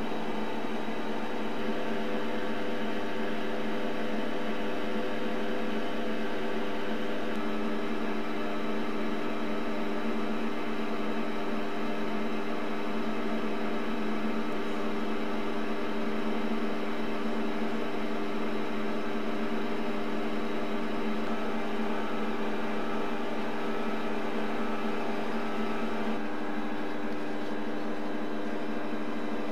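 Optimum D180x300 mini metal lathe running with its spindle turning, giving a steady motor and gear whine.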